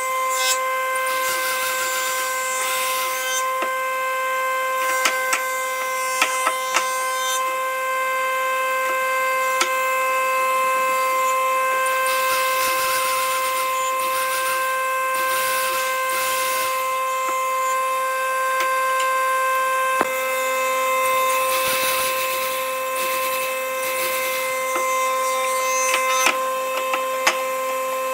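Power tool motor running with a steady high-pitched whine, with scattered clicks and bursts of hiss from working wood.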